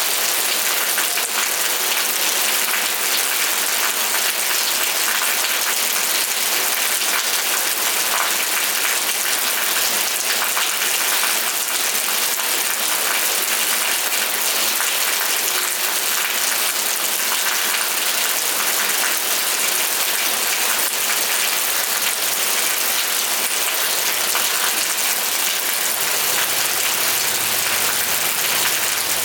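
Steady rain: a constant hiss of many drops falling, with no lull or change.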